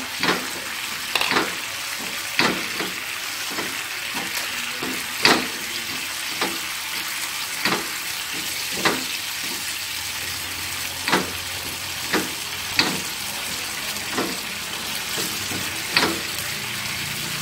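Tomato-chili sauce bubbling and sizzling in a nonstick frying pan, coming up to a full boil, while a wooden spatula stirs it, scraping and knocking the pan in sharp strokes every second or so.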